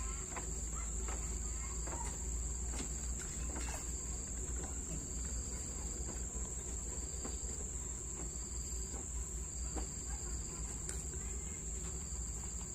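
Insects calling outdoors: a continuous high, thin drone, joined from about five seconds in by a second insect call repeating in short phrases. Faint scattered clicks lie underneath.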